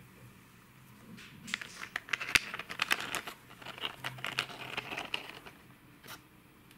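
Hard plastic clicking, rattling and scraping as a plastic toy car is handled and slid onto the deck of a plastic car-carrier truck, with a sharp click about two and a half seconds in and a last click near the end.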